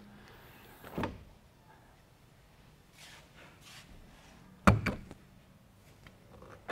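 Catches of a gull-wing window on a Toyota Land Cruiser troop carrier being worked by hand: a thump about a second in, then a louder double metallic clunk near five seconds as the catch releases, followed by a few light ticks.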